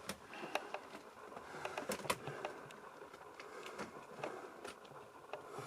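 Faint, irregular small clicks, taps and rustles of someone moving about and handling things in a cluttered small room.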